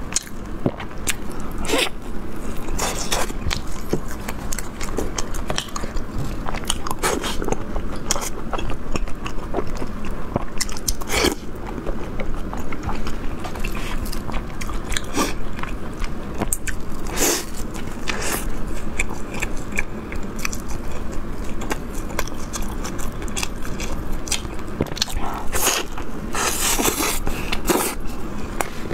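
A person biting into and chewing an Old Beijing sesame flatbread stuffed with meat, with irregular crisp crunches all through.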